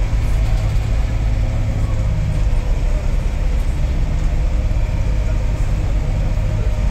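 Steady low rumble of a vehicle's engine and tyres as it drives along a gravel road.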